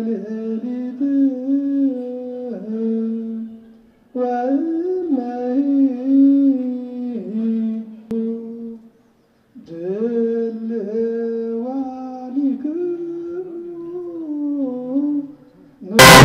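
A single voice singing a slow funeral chant, its pitch bending and winding through long phrases, breaking off twice for a short pause. Near the end a brass band cuts in loudly.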